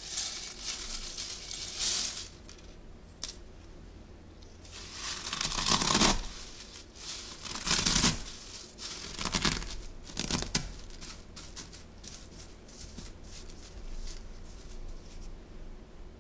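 Frosted cornflakes spilling out of a glass bowl onto a countertop, then crunching and crackling as gloved hands press and lightly crush them. There are several loud crunching bursts in the first ten seconds, then smaller, quieter crackles.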